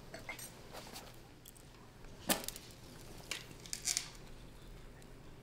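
Small sharp clicks and knocks, the loudest about two seconds in and another a second later, then a short scratchy hiss near four seconds: a match struck to light a cigarette.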